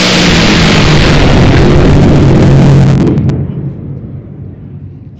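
Top Fuel dragster's nitromethane-burning engine running very loud at full power, its pitch falling slowly, then cut off about three seconds in with a few sharp pops and a fading rumble left behind.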